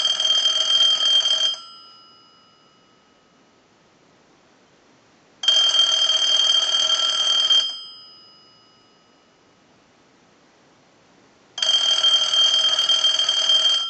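Clear Bell South Trimline telephone ringing in the standard cadence: three rings of about two seconds each, roughly six seconds apart, with quiet between. The rings are a final extended ring test, checking that the phone no longer seizes or shorts the line on a ring cycle after two neon bulbs were removed from its base to lighten the load.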